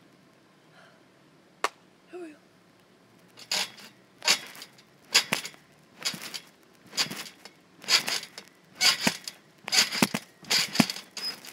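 Trampoline bouncing: after a single sharp click, the mat sounds with each landing in a regular noisy burst about once a second, starting about three seconds in and running on steadily.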